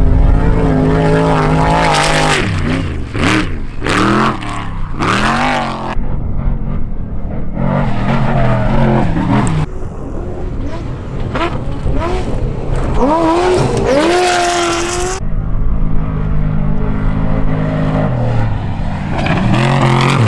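Off-road race vehicle engines revving hard and accelerating, the pitch climbing and falling repeatedly. The sound changes abruptly several times from one vehicle to another.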